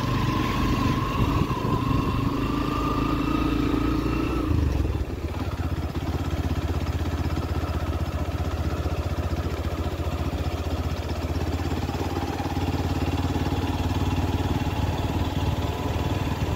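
A vehicle engine running while travelling along a road. Its pitch climbs for the first four seconds or so, then drops suddenly about five seconds in to a steady low drone, and starts to climb again near the end.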